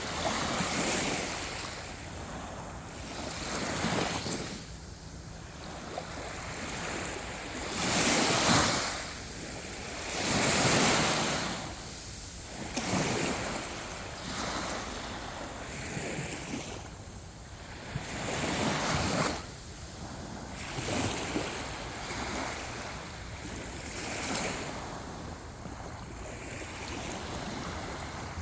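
Sea waves breaking and washing up a beach, the surf swelling and fading every few seconds, loudest twice near the middle.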